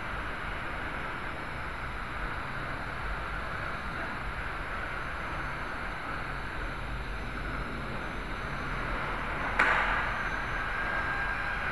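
Small toy quadcopter's motors and propellers running steadily, picked up by its own onboard camera microphone. A single sharp knock about two-thirds of the way in.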